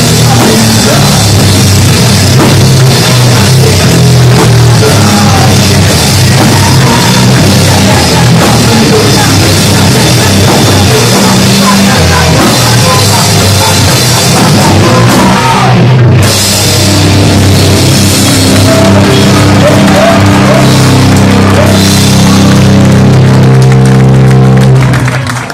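Hardcore punk band playing live and loud: distorted electric guitars, bass and drum kit. The cymbals drop out for a moment about two-thirds of the way through before the band carries on.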